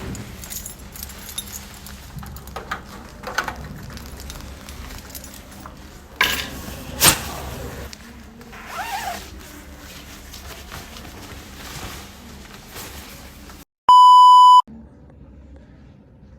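Scattered small clicks, rustles and knocks, with one sharp hit about seven seconds in. Near the end a short, steady electronic bleep tone sounds for under a second, cut in abruptly after a moment of dead silence; it is the loudest sound.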